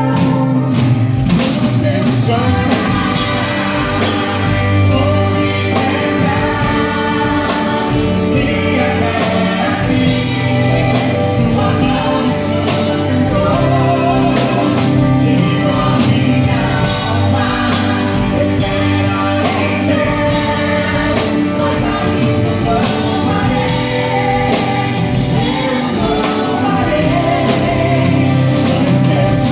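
Gospel song with singing over a full band accompaniment and a steady drum beat.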